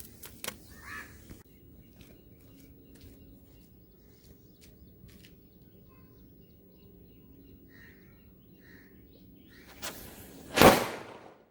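Quiet outdoor background with a few faint bird chirps, then near the end a single loud bang from a one-sound firecracker going off.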